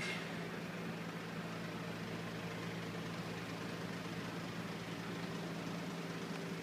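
A vehicle engine idling: a steady, unchanging low hum.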